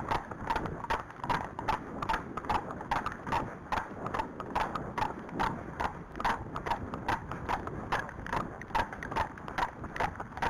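Hooves of two horses, a Friesian and an Arabian, clip-clopping on a tarmac lane in a steady run of sharp knocks, several a second.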